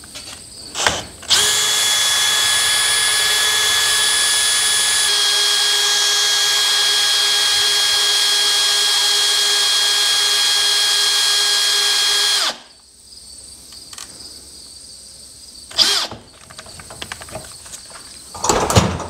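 Cordless drill turning the winder of a garage door torsion spring to put tension on it, running at a steady whine for about eleven seconds before stopping, its pitch stepping down slightly about five seconds in. A few short clicks and knocks come before and after the run.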